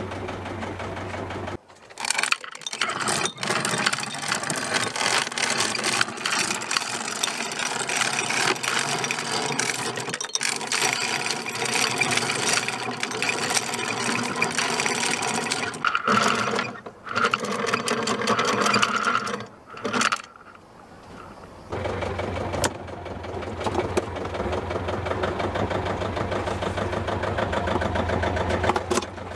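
Anchor chain clattering and rattling as it is paid out by hand over a sailboat's bow fitting. Near the end the boat's inboard engine runs steadily in reverse, pulling back against the anchor to dig it into the seabed.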